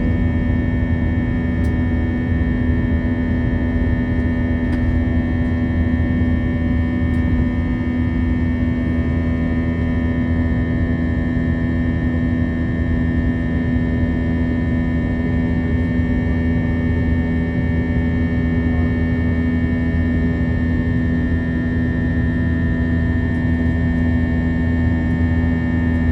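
Steady drone of an Airbus A321-200's jet engines heard from inside the passenger cabin: an even roar carrying a low hum and a high whine, with no change in pitch or level.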